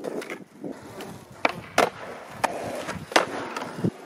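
Skateboard wheels rolling on rough asphalt, broken by several sharp clacks of the tail popping and the deck landing during flatground tricks; a duller thud near the end.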